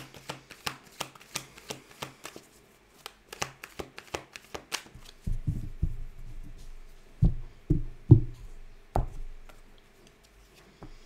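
Tarot deck being shuffled by hand: a quick run of crisp card clicks for about five seconds, then a few dull thumps as the deck meets the cloth-covered table, the loudest about eight seconds in.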